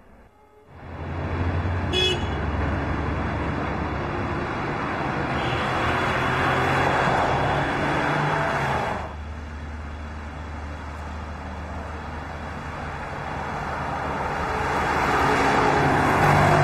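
A car driving with its engine running, mixed with background music. The sound drops suddenly about nine seconds in and then builds again.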